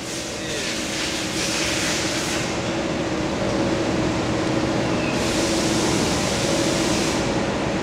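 Steady mechanical hum of factory machinery with a low, unchanging tone under it. A hiss rides on top and drops away twice.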